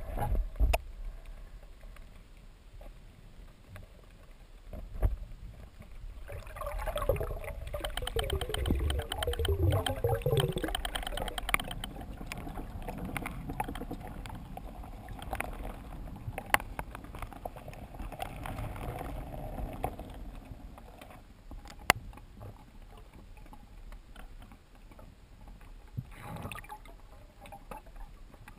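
Underwater sound heard through a diving camera's housing: a low steady water rumble with a few sharp clicks and knocks, and a louder rushing stretch lasting several seconds about a quarter of the way in.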